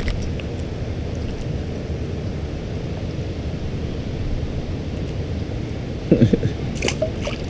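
Steady low rush of river water running through rapids.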